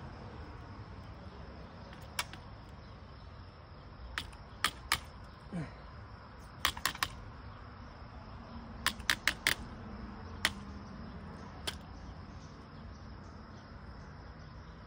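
Sharp clicks of a hand cutter squeezed on a PVC sprinkler pipe, about a dozen in scattered groups, some in quick runs of three or four. The blade is too small to bite through, so it is crushing the pipe rather than cutting it.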